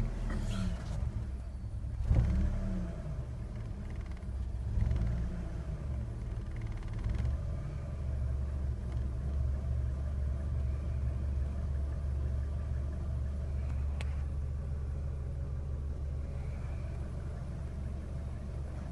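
2001 Ford Focus four-cylinder engine blipped twice in the first few seconds, then settling to a steady idle. The engine has a misfire that makes the idle rough. A single sharp click sounds about two-thirds of the way through.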